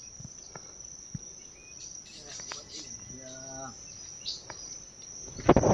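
Forest insects droning in one steady high-pitched tone. A brief low hum sounds about three seconds in, and a loud bump comes near the end.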